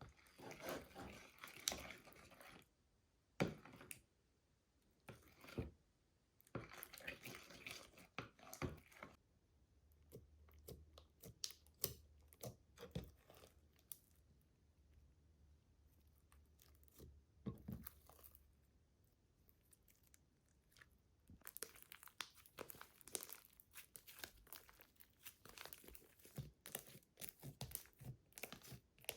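Slime being squeezed, pressed and stretched by hand, giving clusters of small sticky clicks and crackles in bursts of a second or two with short quiet gaps between them.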